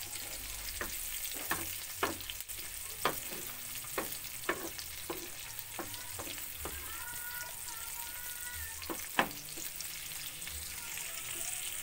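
Chillies, shallots, garlic and shrimp paste frying in hot oil in a pan: a steady sizzle, with a wooden spatula stirring and knocking against the pan about once a second, the sharpest knock about nine seconds in.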